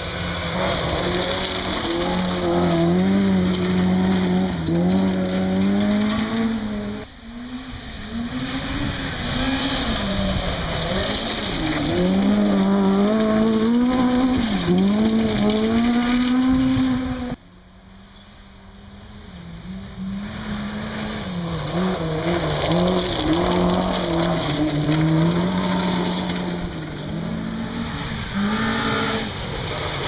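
1400 cc-class rally car engines driven hard on a gravel stage, the engine note repeatedly climbing and dropping through gear changes and lifts as the cars come past. The sound breaks off sharply twice, about 7 and 17 seconds in, and a new car's engine builds up each time.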